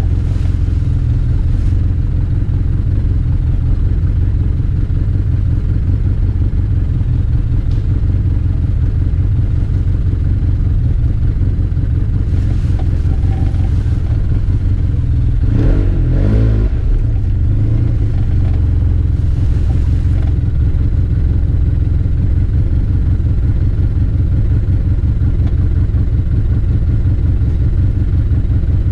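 Arctic Cat Wildcat Trail 700 side-by-side's single-cylinder engine running at low speed, with a brief rev up and back down about halfway through.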